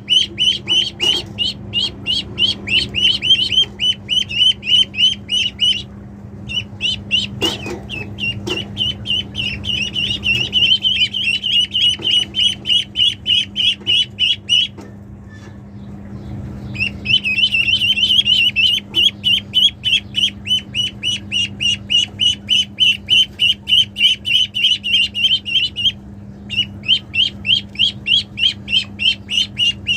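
Ducklings peeping: short, high-pitched calls repeated several times a second, with a brief break about six seconds in and a longer lull around the middle. A steady low hum runs underneath.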